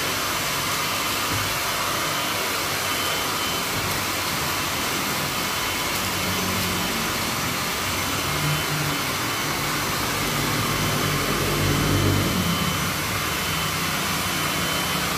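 Steady rushing air noise from a running blower, even throughout, with a faint low rumble that swells about twelve seconds in.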